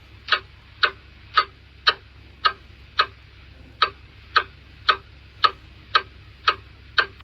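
Antique clock ticking as its second hand steps, sharp even ticks about two a second over a faint low hum.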